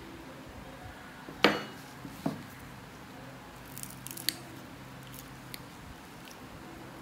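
Sharp clicks and snaps of steel pedicure tools on a thick, horn-like overgrown toenail. There is a loud snap about a second and a half in and another just after, then a quick cluster of smaller clicks as nail nippers bite into the nail.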